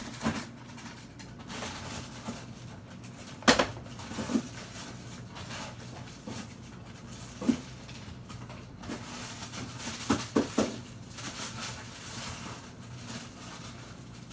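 Scattered knocks and clatters of things being handled in a kitchen, the loudest about three and a half seconds in and a quick run of three around ten seconds, over a faint steady hum.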